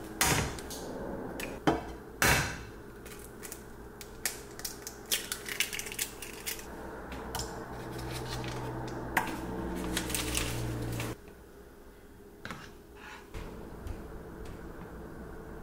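An egg cracked on the rim of a white ceramic-coated frying pan, then a run of quick clicks and taps of a utensil against the pan. A low steady hum cuts off suddenly about eleven seconds in. Near the end come a few softer knocks as a spatula stirs the eggs in the pan.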